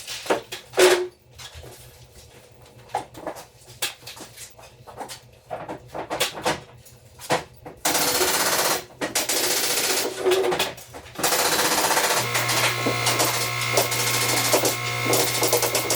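Woodworking: a run of sharp, irregular knocks and clicks, then a power tool running steadily from about halfway, settling into an even hum with a high whine for the last few seconds.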